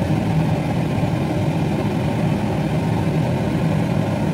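A steady low rumble that does not change, with most of its sound deep and no separate knocks or beat.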